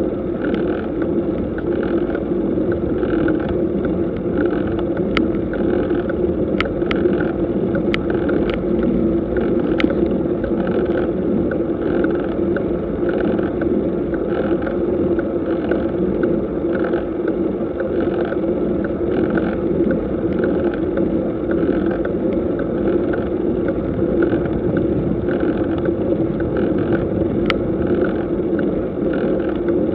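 Steady ride noise of a road bicycle climbing slowly: tyres and drivetrain as picked up by a bike-mounted camera's microphone. A faint pulse repeats about every two-thirds of a second, and a handful of sharp clicks come between about five and ten seconds in, with one more near the end.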